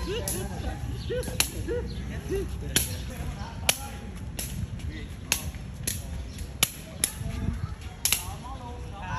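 Sharp slapping taps of a Khmer shuttlecock (sey) being kicked back and forth between two players, about one kick a second, over a steady low background rumble.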